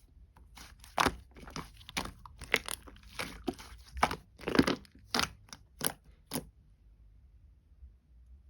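Pearl slime being pressed and pulled by hand, giving an irregular run of sharp pops and crackles that stops about six and a half seconds in.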